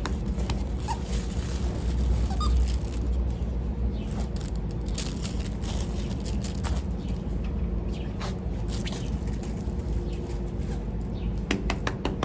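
A dog at play with a toy: scattered small clicks and a couple of brief high squeaks over a steady low rumble.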